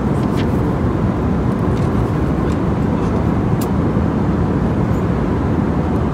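Steady low rumble of the cabin noise inside an Airbus A320 airliner. There are a few faint rustles and clicks as the pages of a glossy magazine are turned.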